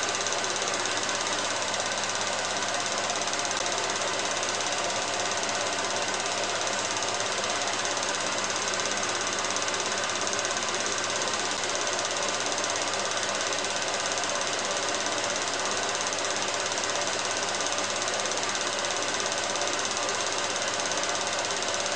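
16mm film projector running: a steady mechanical clatter and whir from the film transport, unchanged throughout.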